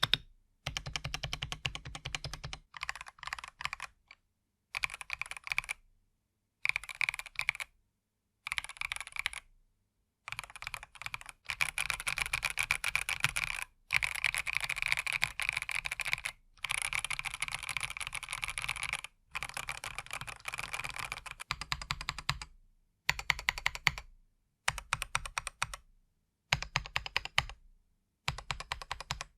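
Typing on an Epomaker EK68 65% mechanical keyboard, its hot-swap switches dampened by foam between plate and PCB and in the case. Bursts of rapid keystrokes a second or two long are broken by short pauses, with a longer unbroken run in the middle.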